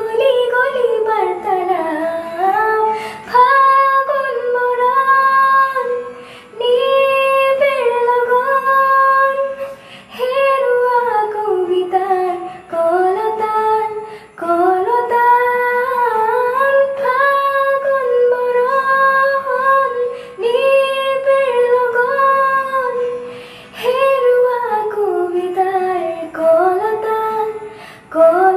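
A teenage girl singing a slow melody solo, in phrases of about two seconds with short breaths between them.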